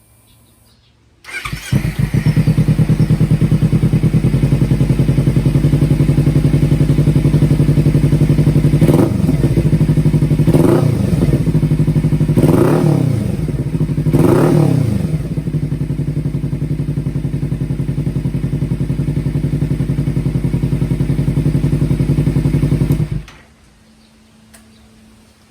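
Kawasaki Ninja 300 parallel-twin engine with an Akrapovic exhaust, started about a second in and idling steadily. It is revved in four quick blips about midway, each rising and falling back to idle, and is then shut off near the end.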